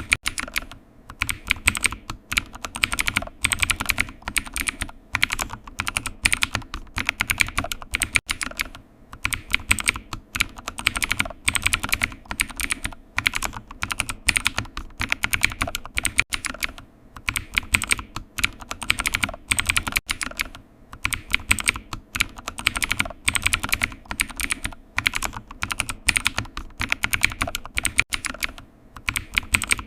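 Typing on a computer keyboard: quick, dense runs of key clicks broken by brief pauses.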